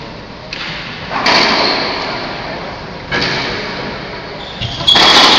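Racquetball rally: about four sharp cracks of the ball off racquet and walls, each ringing on in the enclosed court, the loudest about a second in and near the end.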